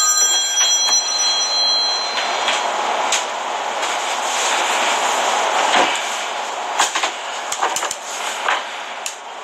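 A phone ringing in the background, an electronic ring that stops about two seconds in. After it comes a steady rushing noise with a few scattered clicks and knocks.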